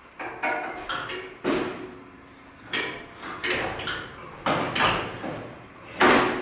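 Irregular metal clanks and knocks as a power steering rack is worked into a tubular steel chassis frame and bumps against the frame tubes. Some knocks ring briefly, and the loudest comes near the end.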